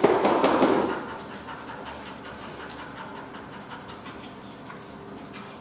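A dog panting, loudest in the first second, then faint.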